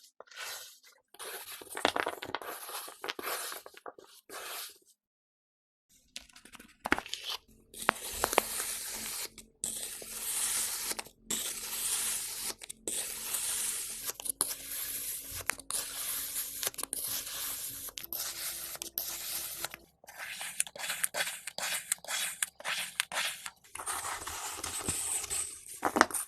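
Knife cutting through kinetic sand: a long run of crisp crunching and scraping strokes, broken by a brief silence about five seconds in.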